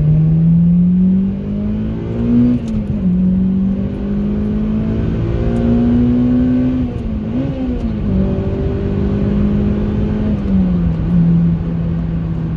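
Honda Civic Type R EP3's four-cylinder i-VTEC engine on its stock intake, pulling under acceleration with revs climbing and dropping at gear changes, about 2.5 s in, near 8 s and near 11 s. The VTEC crossover and its scream are barely heard on the standard airbox.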